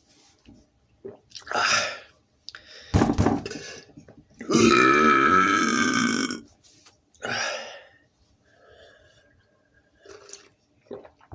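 A man burping loudly after drinking Coca-Cola. One long, wavering burp of about two seconds comes near the middle, with shorter sounds before and after it.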